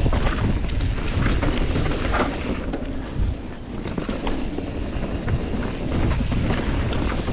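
Riding noise from a Norco Torrent steel hardtail mountain bike on a dirt singletrack: wind buffeting the action-camera microphone and tyres rolling on dirt, with scattered clicks and knocks of the bike rattling over bumps.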